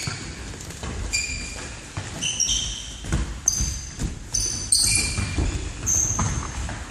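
Indoor football in a sports hall: players' shoes squeaking sharply on the hall floor several times, over low thuds of running feet and the ball.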